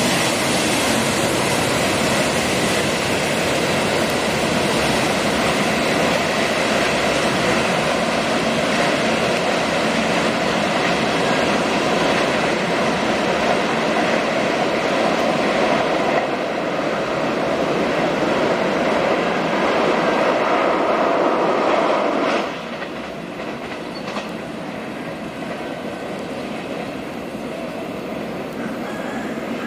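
Container freight train rolling along the track: steady wheel-on-rail noise from the loaded flatcars. About three-quarters of the way through it drops suddenly to a quieter, more distant level.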